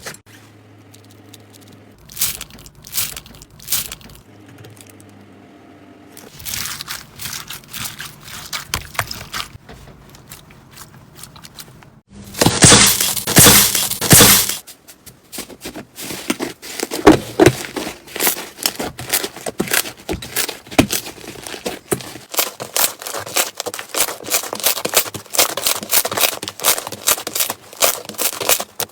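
Slime being squeezed, stretched and poked by hand, giving crackling, popping and crunching clicks in uneven clusters. A loud dense crunching stretch comes about halfway through, followed by fast runs of sharp crackling clicks.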